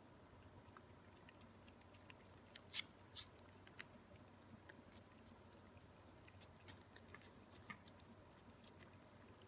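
Two Ragdoll cats licking a lickable paste treat from a squeeze tube: faint, irregular wet tongue clicks and smacks, with a couple of louder smacks about three seconds in.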